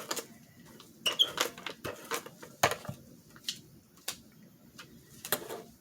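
Paper cutouts being handled: scratchy rustles with scattered light taps and clicks as a paper bird is placed and pressed onto the collage.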